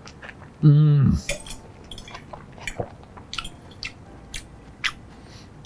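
A short hum from a man with his mouth full, about a second in, then a metal fork clicking and scraping against a plate as it cuts through baked stuffed zucchini, in a run of quick small clinks.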